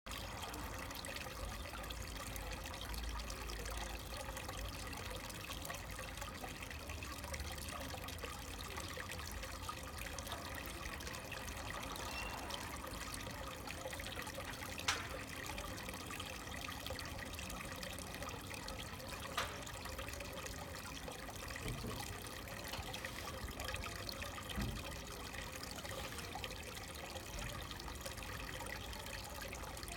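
Thin stream of water from a stone fountain's spout trickling steadily into a shallow stone basin, with a few brief clicks from about halfway through.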